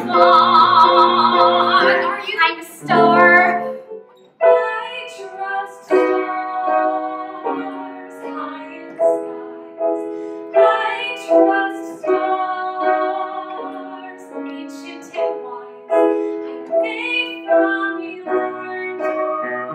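A woman sings a long held note with vibrato, then a short phrase. After a brief break about four seconds in, a piano plays a slow accompaniment of struck chords and single notes, each ringing and fading.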